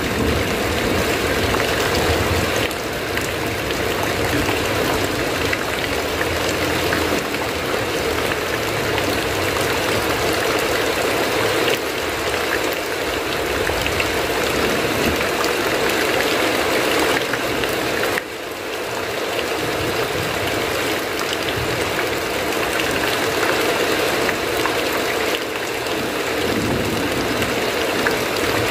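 Heavy rain falling steadily: a dense, even hiss that dips briefly in level a few times.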